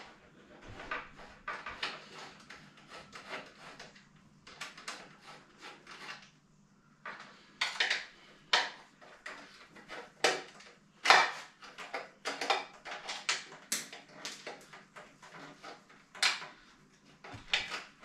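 Hand tools and bike components clicking, clinking and knocking irregularly as a triathlon bike is stripped down, with a short lull partway through and sharper knocks in the second half.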